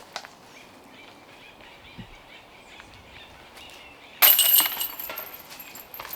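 A disc hitting the chains of a disc golf basket about four seconds in: a sudden metallic crash and jingle of chains that rings out and fades over about a second.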